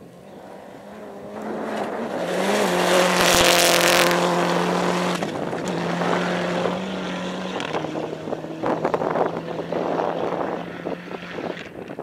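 Rally car approaching and passing at speed on a gravel stage. The engine runs hard with several steps in pitch, and engine and tyre noise are loudest about three to four seconds in, then fade as the car pulls away.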